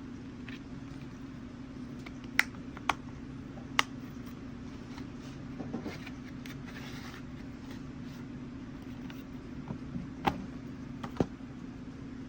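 Sharp plastic clicks and light handling of a Blu-ray disc case: three clicks a couple of seconds in, a soft rustle in the middle, and two more clicks near the end, over a steady low hum.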